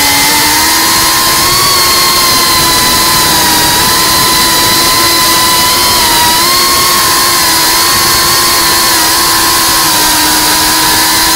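FPV quadcopter's brushless motors and propellers whining steadily over a rushing hiss, the pitch dipping and rising slightly with throttle as the drone banks and rolls.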